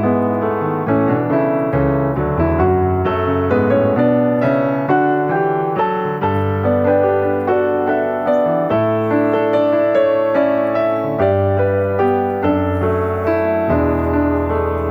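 Background piano music: a steady run of notes over bass notes that change every couple of seconds.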